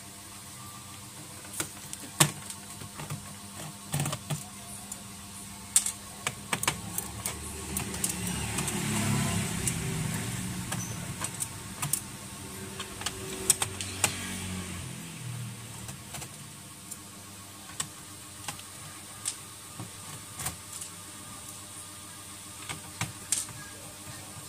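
Scattered small clicks and taps of a screwdriver and tiny screws against the plastic base of a laptop as its case screws are taken out. A low rumbling noise swells up about seven seconds in and fades away several seconds later.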